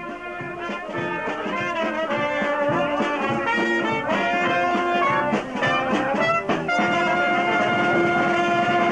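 Dixieland-style jazz street brass band playing, with sousaphone, trombones and trumpets. It grows louder over the first couple of seconds and ends on long held notes.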